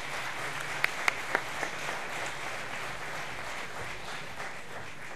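Audience applauding: many hands clapping together, with a few sharper, louder claps close to the microphone about a second in.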